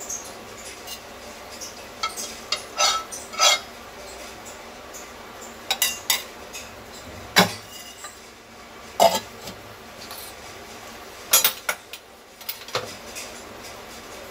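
Kitchen utensils being handled: a metal spoon and containers clinking and knocking, about ten sharp strikes spread unevenly.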